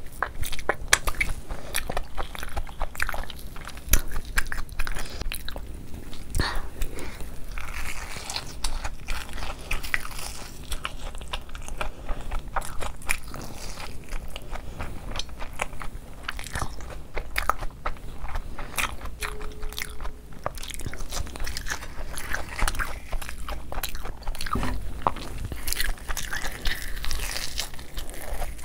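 Close-miked biting, crunching and chewing of Cheetos-crusted rice paper rolls: a steady run of sharp crunches with chewing between bites.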